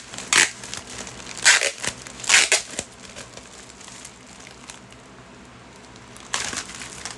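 Plastic packaging crinkling as it is handled, in several short bursts over the first three seconds and again near the end.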